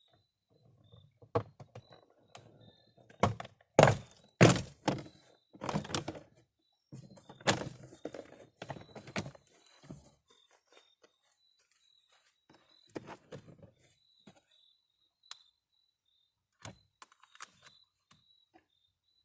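Plastic interior door trim panel being pried off a 2013 Nissan Altima's front door and lifted away, its retaining clips popping loose in a series of sharp snaps and thunks. The loudest cluster comes about four to five seconds in, with fewer, lighter knocks later on.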